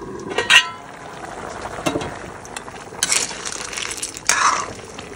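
Aluminium lid clanks with a short ring as it is lifted off a kadai about half a second in, with a smaller knock a little later. Then a metal ladle stirs the boiling snail and pumpkin curry, in uneven bursts of bubbling and scraping.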